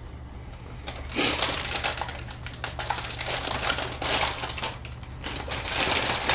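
Close-miked crunching and chewing of a firm waffle, starting about a second in and going on as a dense run of irregular crackles.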